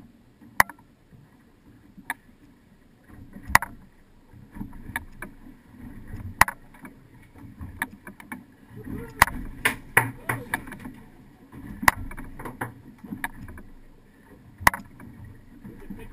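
Choppy water sloshing and slapping against a fishing boat's hull as a low, uneven noise, with sharp knocks and clacks at irregular intervals, bunched most thickly a little past the middle.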